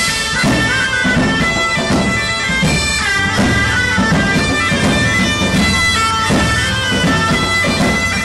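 Background music with a held, drawn-out melody over a steady beat.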